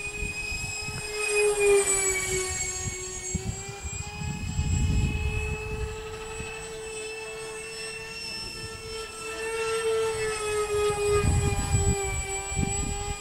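Electric ducted fans of a radio-controlled A-10 Warthog model jet giving a steady high whine, swelling and sliding a little in pitch as the model passes. Wind buffets the microphone about four seconds in and again near the end.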